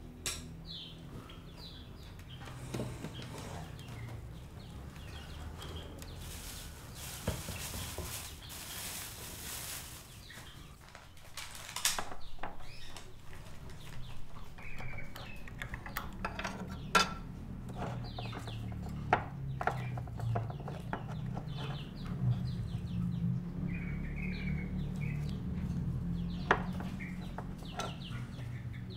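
Caged birds chirping in short, repeated calls, with a few sharp clinks of cutlery or dishes.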